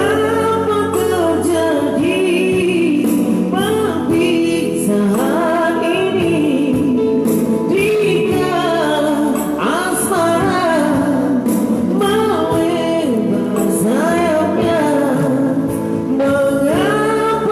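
Music: a slow old-style song with a high singing voice carrying a gliding, wavering melody over steady instrumental accompaniment.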